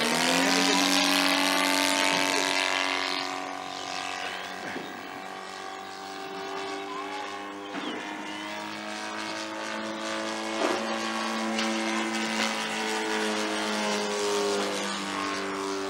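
Saito FG-61TS 61cc flat-twin four-stroke petrol engine of a 25% scale Piper Pawnee model plane in flight, turning a 22x10 propeller. It is loud at first and drops in pitch as the plane passes, fades as it flies off, then grows louder again and holds a steady note as it comes back around.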